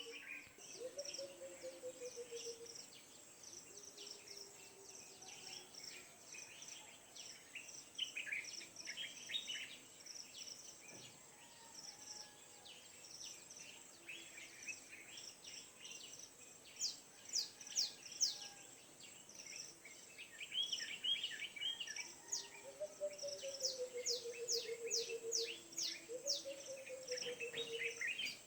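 Early-morning outdoor chorus of many birds chirping in short quick calls over a steady high insect drone, with a rooster crowing, long falling calls about a second in and again in the last few seconds.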